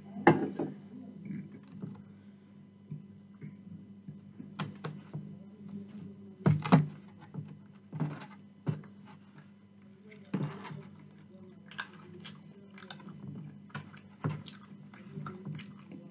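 Close-miked chewing of chips, with a metal fork clicking and scraping against a polystyrene takeaway box; the sharpest clicks come just after the start, about six and a half seconds in and about ten seconds in. A steady low hum sits underneath.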